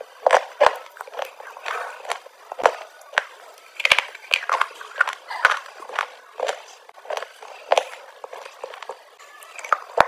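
Close-up mouth crunching: hard, chalk-like blocks being bitten and chewed, an irregular run of sharp, crisp cracks several a second with quieter grinding crackle between.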